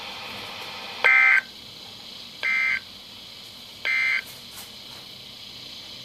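NOAA Weather Radio SAME end-of-message data bursts, three short buzzy tone bursts about a second and a half apart, the first the loudest, heard through Midland weather radios' speakers over faint hiss. They mark the end of the EAS flood warning broadcast.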